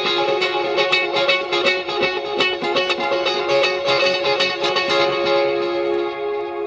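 Electric guitar picking a quick melodic line through overdrive, a dotted-eighth delay and shimmer reverb, the notes repeating and washing together. About five seconds in the picking stops and the last notes ring on and slowly fade in the reverb.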